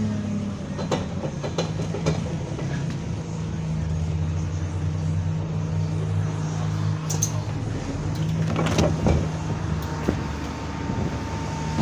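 Single-deck bus's diesel engine running, heard from inside the bus by the rear doors, its note falling in the first second and then holding steady; the engine has been modified and sounds like an older Euro 3 engine. A cluster of knocks and rattles comes about eight to nine seconds in.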